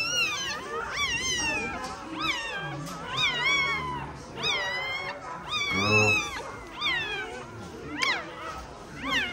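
Newborn American Bully puppies crying: a run of high-pitched, wavering cries, about one a second, some overlapping.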